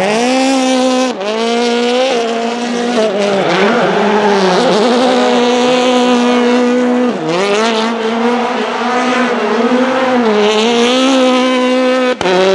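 Hyundai i20 WRC's 1.6-litre turbocharged four-cylinder engine held at high revs, with short dips and recoveries, while the car spins its tyres in a smoking burnout. The tyres squeal and hiss over the engine. The sound cuts out for a split second near the end.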